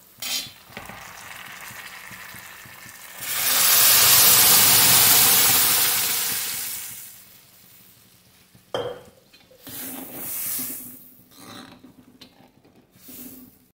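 Cooked toor dal poured into a hot kadhai of ghee-fried onion, tomato and chillies: a loud sizzle sets in about three seconds in and dies away over the next few seconds. Afterwards a steel spoon knocks once against the pan and scrapes as the dal is stirred.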